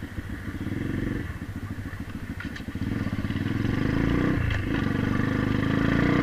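Single-cylinder engine of a 125cc pit bike pulling away, chugging at low revs for the first couple of seconds, then revving up and running louder from about three seconds in.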